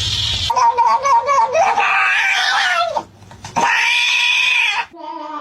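A cat meowing loudly in two long, drawn-out calls with a short break between them.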